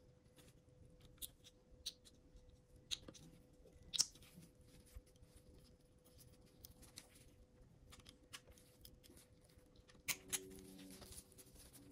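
Faint scattered clicks and taps of small hand tools on small drone parts, the loudest about four seconds in and a quick cluster near the end, over a steady faint electrical hum.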